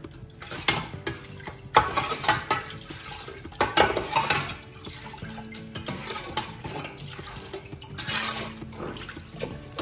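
A slotted metal ladle stirs and sloshes soup stock in an aluminium pot, clinking and scraping against the pot's side. Louder splashing strokes come about 2, 4 and 8 seconds in.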